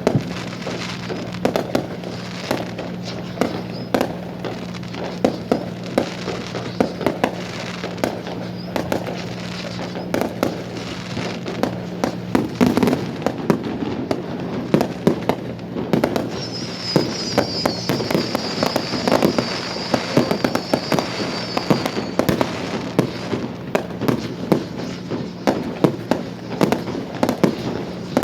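Fireworks display: a rapid, continuous string of bangs and pops. A steady low hum underneath stops about halfway through, and a high wavering crackle rides over the bangs for several seconds in the second half.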